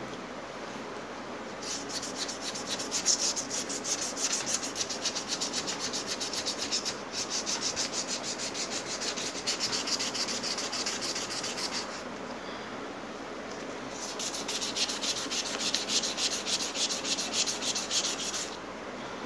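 Sandpaper rubbed by hand on a metal bracket: quick back-and-forth scratching strokes that scuff the old paint off down to bare metal. The strokes come in two spells, stopping for about two seconds in the middle and ending shortly before the end.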